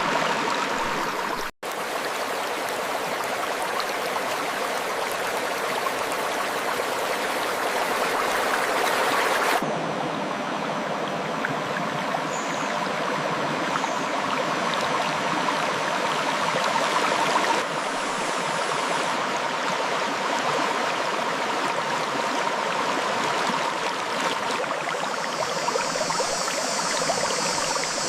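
Clear river water flowing over rocks in a steady rush. There is a split-second dropout about a second and a half in, and the sound of the water changes abruptly twice.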